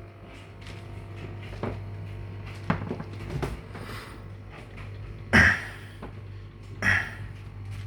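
Knocks, clicks and a couple of louder short bumps from handling a two-door fridge's doors and contents, over a steady low hum.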